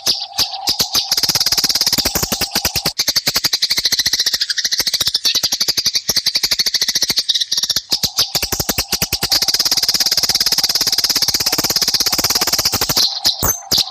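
Eurasian tree sparrows chattering in a fast, dense run of short chirps, the agitated calls of sparrows fighting.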